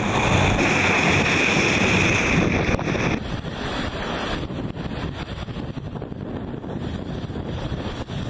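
Strong wind buffeting the microphone over the rush of the sea aboard a sailing yacht in heavy weather. The noise drops abruptly about three seconds in and carries on weaker.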